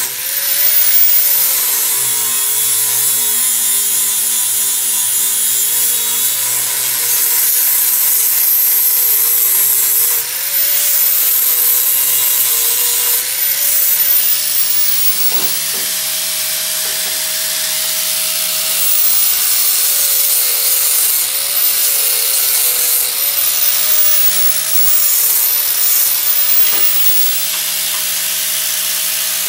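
Angle grinder fitted with a flap-wheel sanding disc grinding leftover burr off a steel exhaust muffler: a steady loud grinding hiss over the motor's whine, which sags and recovers several times as the disc is pressed into the metal.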